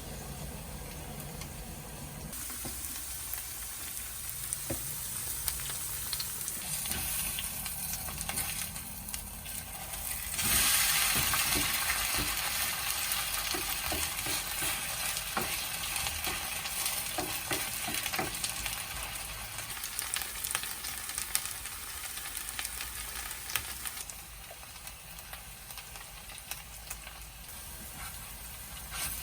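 Shredded potato pancake frying in oil in a pan, sizzling, with light taps of a utensil. The sizzle jumps louder about ten seconds in and eases off near the end.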